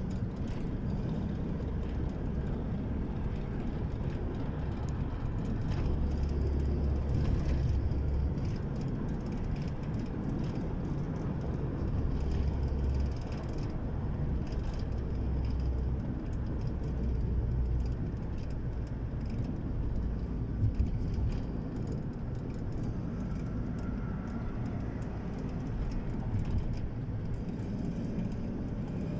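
Steady low rumble of a car driving at speed, tyre and road noise heard from inside the cabin, with a couple of brief knocks about two-thirds of the way through.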